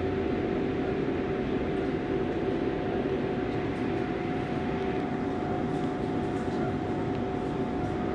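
Steady hum inside an R188 New York City subway car as the train creeps along slowly, with a low rumble and a constant, unchanging tone.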